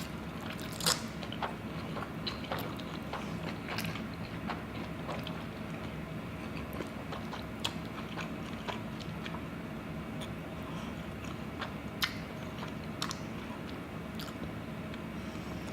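Close-miked mukbang eating: chewing and biting, with scattered sharp crunchy clicks over a steady low hum.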